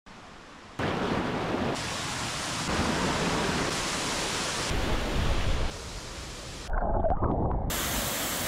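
Rushing water of the Borovniščica stream's waterfalls: a dense, loud noise that shifts abruptly in level and tone about once a second, as one stretch of falling water gives way to another. A stretch about six to seven seconds in is quieter.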